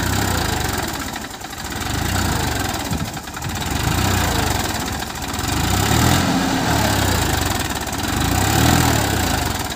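Massey Ferguson 241 DI tractor's three-cylinder diesel engine running under heavy load as the tractor churns forward through deep mud, stuck in a flooded paddy channel. The engine note swells and eases about every two seconds.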